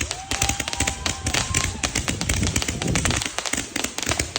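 Consumer fireworks crackling and popping in a rapid, dense stream, with a thin rising whistle-like tone for about a second and a half near the start.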